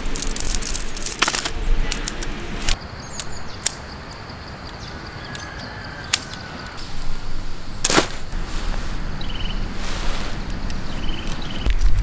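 Aluminium-alloy tent pole sections snapping together on their shock cord: a run of sharp metal clicks, several in the first few seconds and a loud one about eight seconds in.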